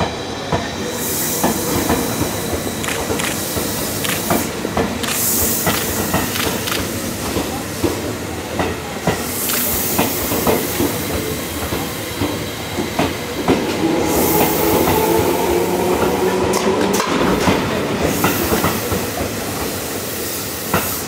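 Tobu 10000-series electric train of six cars, a four-car unit coupled to a broken-down two-car unit, rolling slowly past. Its wheels click over rail joints, with repeated bursts of hissing and a slightly rising whine from about 14 to 17 seconds in.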